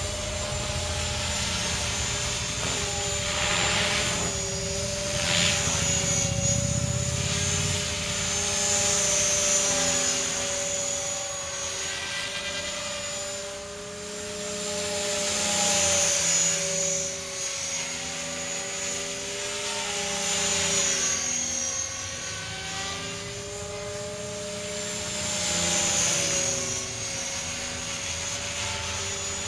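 Align T-REX 500 electric RC helicopter in flight: a steady whine from its motor and rotor, swelling and fading every few seconds as it circles overhead.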